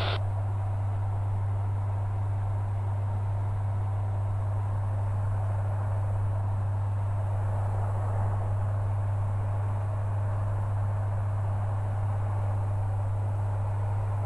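Steady drone of a Maule light aircraft's piston engine and propeller, heard inside the cabin: one even low hum with a hiss above it.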